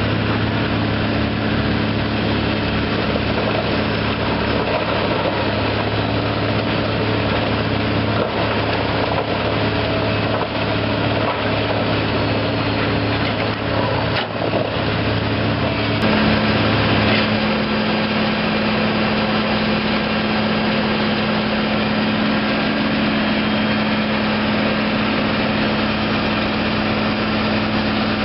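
The diesel engine of a 2005 Peterson 4700 horizontal grinder running steadily, its note shifting about sixteen seconds in.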